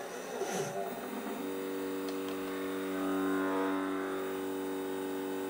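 Stepper motors of a CNC mill built onto a Sherline 4410 lathe whining as they drive the axes and bring the spindle down towards a wooden block. A steady pitched whine starts about a second and a half in and holds until near the end, over a low electrical hum.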